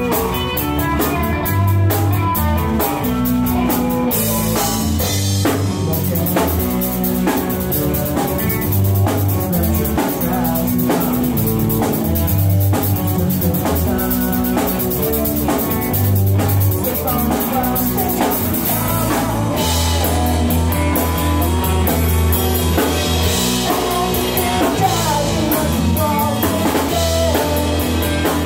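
Rock band playing live on drum kit, electric bass and two electric guitars. Cymbals come in about four seconds in, and partway through the bass moves to long held notes under the drums.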